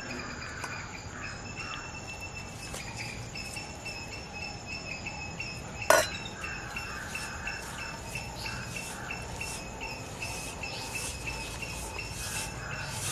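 Hand squishing and mixing a damp flour-and-spice paste in a stainless steel bowl. Steady insect chirping pulses throughout, and one sharp metallic clink comes about six seconds in.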